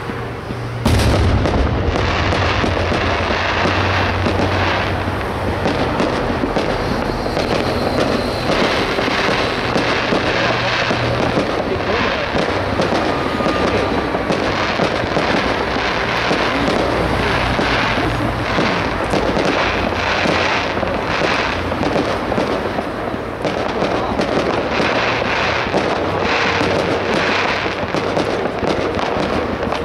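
Aerial fireworks: a sudden loud bang about a second in, then a dense, continuous barrage of shell bursts and crackle.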